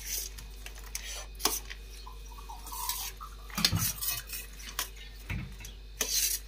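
A steel spoon scraping and clinking against a stainless-steel plate as food is mixed and spooned out, with a few scattered sharp clinks.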